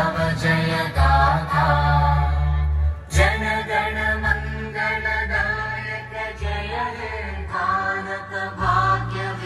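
Vocal music: a voice singing a chant-like melody over steady, sustained low notes.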